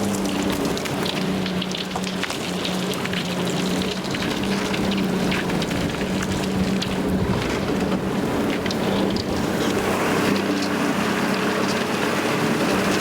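Old 90-horsepower Mercury outboard running steadily at a constant pitch, under a loud steady hiss with scattered ticks.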